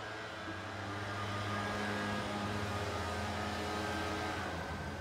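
Steady engine drone, its pitch rising a little about a second in and then holding.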